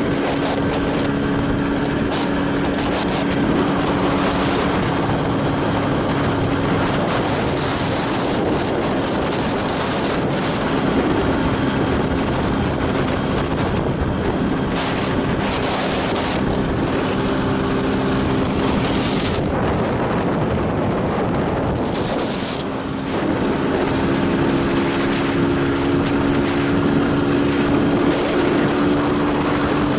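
Motorcycle engine running steadily under way, with wind rushing over the microphone. About two-thirds of the way through, the engine note and the wind ease off briefly, then pick up again at a slightly higher pitch.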